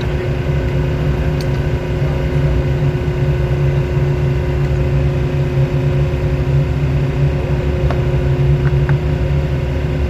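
Steady drone of marine engine machinery, a constant low hum that holds the same pitch throughout.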